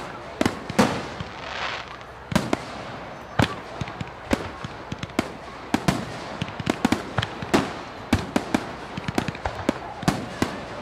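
Fireworks going off: an irregular run of sharp bangs and pops, several a second, over a continuous crackling haze.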